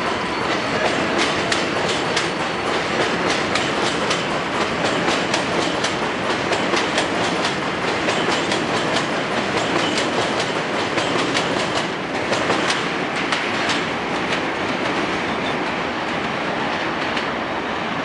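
R142A subway train pulling out of the station and passing close by, its wheels clicking quickly over the rail joints. The clicking thins out and the noise eases a little near the end as the last cars go by.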